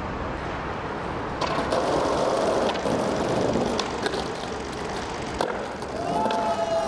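Skateboard wheels rolling on pavement, with a few sharp clacks of the board as the rider hits a low ledge and comes back down.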